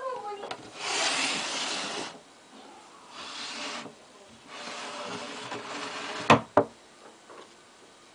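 Loose wood-chip bedding rustling and scraping in three bursts as a mouse scrabbles through it, followed by two sharp knocks close together about six and a half seconds in.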